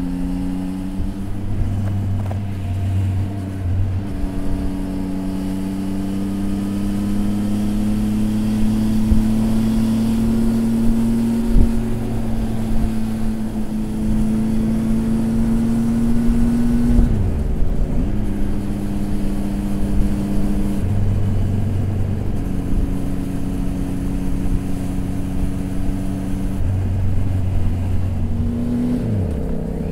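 Triumph Tiger 800 XRX's inline-three engine under way while riding, heard from the rider's helmet with road noise. Its note holds mostly steady, with a brief dip at each of a few gear changes.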